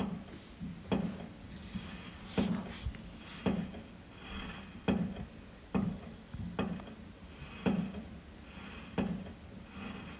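Fireworks going off: an irregular string of sharp bangs, about one a second.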